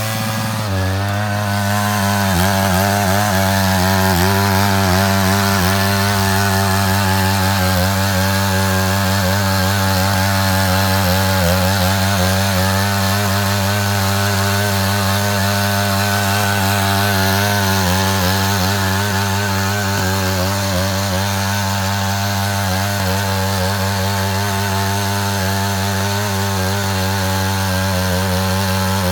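Matsuda walk-behind power tiller's engine running steadily under load while its ditching attachment cuts a trench, a continuous drone that wavers slightly in pitch.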